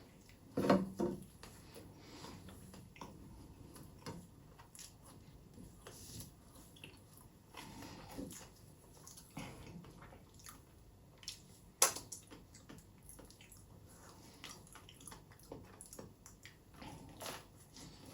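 Close-miked eating: biting and chewing with many short, irregular clicks. There is a louder bite about a second in and one sharp click about two-thirds of the way through.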